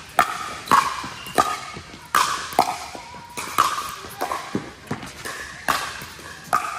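Pickleball rally: a quick series of sharp pocks as paddles strike the hollow plastic ball and it bounces on the court, about a dozen in all, each with a short ring that echoes in a large indoor hall.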